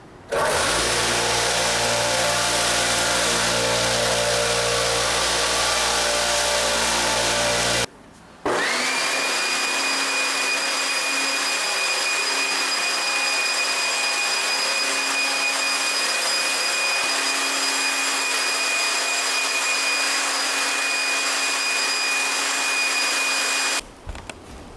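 Loud electric machine motors in two stretches. The first has a low steady hum and stops abruptly about eight seconds in; the second spins up with a quickly rising whine that settles into a steady high whine and cuts off shortly before the end.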